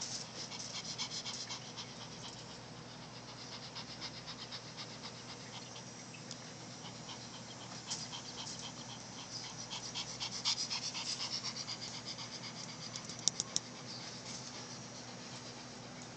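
Pomeranian panting with her mouth open, a quick, even rhythm of several breaths a second that grows louder for a while past the middle. A few sharp clicks come about thirteen seconds in.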